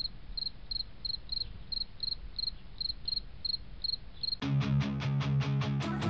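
Cricket chirping, about three short chirps a second, over a low hum. About four seconds in, the chirping stops and music starts with a quick, regular guitar rhythm over bass.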